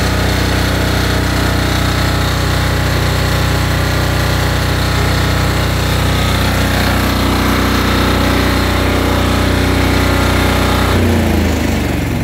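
Small engine of an IGNIX 16 portable fire-extinguishing and decontamination unit running steadily, then slowing down about 11 seconds in.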